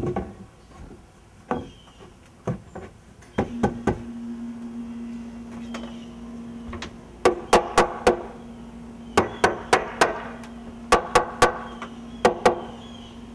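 Hammer striking a doubled 2x10 wooden header to tap it into place and square it up in a framed window opening. A few separate blows come first, then from about seven seconds in quick bursts of two to five blows.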